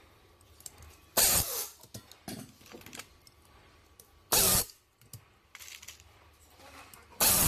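Three short, loud bursts of hissing, about three seconds apart, with faint handling clicks of plastic parts between them.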